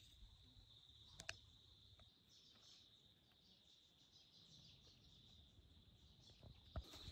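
Faint, steady, high-pitched insect trill, with a single click about a second in and a knock near the end.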